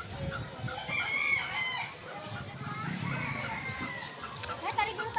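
Chickens calling in a village yard: overlapping clucks and short calls, with a rooster crowing.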